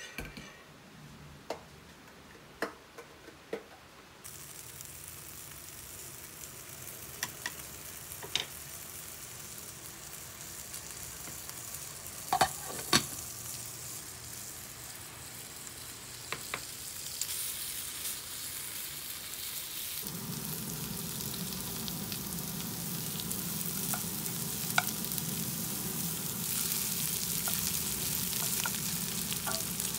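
Onions and bacon sizzling in a frying pan while being stirred with a wooden spatula. The sizzle builds and is fullest in the second half. Scattered clicks and knocks of kitchen utensils run through it, the loudest two close together about halfway through.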